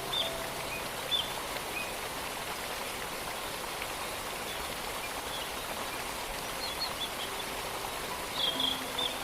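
Steady rush of a distant waterfall with small birds chirping now and then. A few soft music notes come back near the end.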